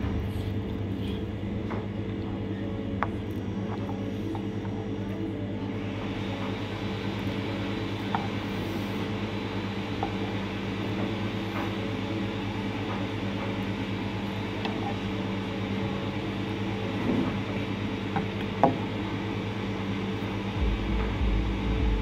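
Steady mechanical hum of a room appliance or fan, with a few light clinks of a fork and spoon against a bowl, the sharpest one late on. A deeper rumble joins the hum near the end.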